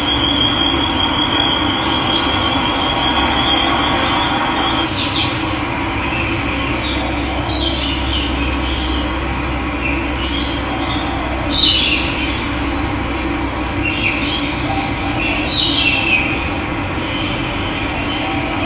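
Steady rush of running water with wild birds calling over it: a thin high steady note for the first few seconds, then several short chirps, the loudest a little past the middle.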